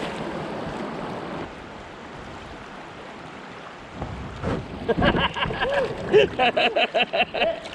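Rushing water of a river rapid as a kayak runs a drop-off. About four seconds in come knocks and splashes, along with a person's short, quickly repeated high-pitched whoops.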